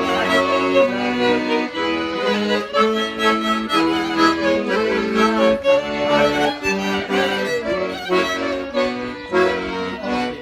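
Accordion playing a traditional folk tune, with violin alongside, a run of quick changing notes.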